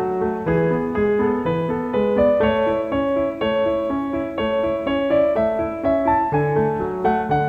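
Background music: a keyboard instrument, piano-like, playing a steady stream of notes.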